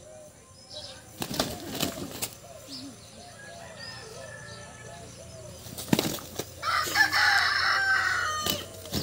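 Roosters clucking low and repeatedly, with a few sharp flaps around one to two seconds in and again near six seconds, then a loud, harsh rooster call lasting nearly two seconds about seven seconds in.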